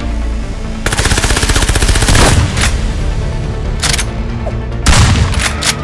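A burst of rapid-fire shots about a second in, then scattered single shots, over action background music.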